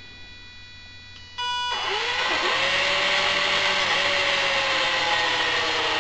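A pair of 18-volt cordless drill motors, run through speed controllers from a gamepad stick, spin up about a second and a half in and keep running fast with small changes in speed. Before they start there is a steady high whine.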